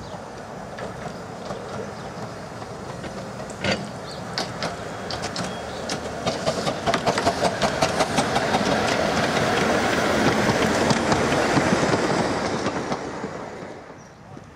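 RH&DR 15-inch-gauge steam locomotive pulling a train of coaches out of the station and passing close by, wheels clicking rhythmically over the rail joints. One sharp knock comes about four seconds in. The train grows louder as it passes, then fades near the end.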